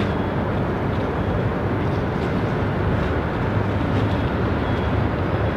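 Steady low rumble of a harbour tugboat's engine working as it pushes an aircraft carrier, heard across open water.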